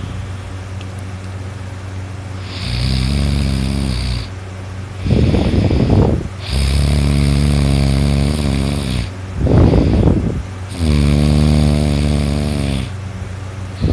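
A sleeping man's loud snoring: three long, rattling snores with short, rough breaths between them.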